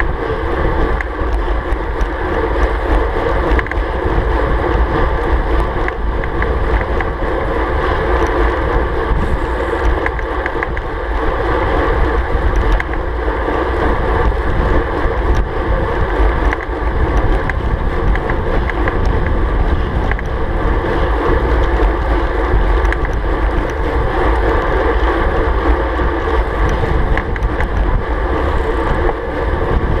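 Steady wind rush and rumble on the GoPro camera's microphone of a road bike riding at about 39 km/h, with road noise underneath.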